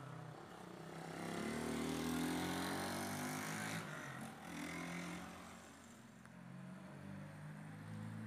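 A motor vehicle passing on the street: its engine note rises and its noise swells to a peak about two seconds in, then fades by about the middle, leaving a steady low engine hum.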